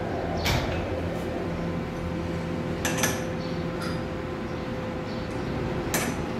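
Three sharp metallic clicks and knocks as a lathe's tool post and its clamping handle are worked by hand, over a steady machine hum.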